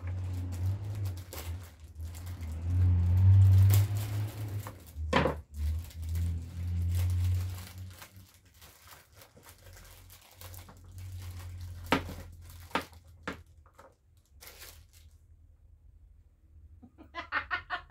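Clear plastic bag crinkling as green beans are pulled out of it, with a few sharp clicks and knocks from handling at the table. A low hum runs through the first half, and a woman starts laughing near the end.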